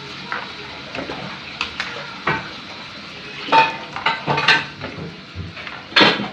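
Metal utensil clinking and scraping against a cooking pot while stirring: a run of irregular knocks, the loudest near the end.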